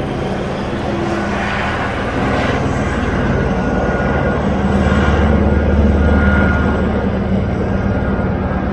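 Helicopter rotor beating in rapid pulses over a steady engine drone, growing louder toward the middle and easing a little near the end.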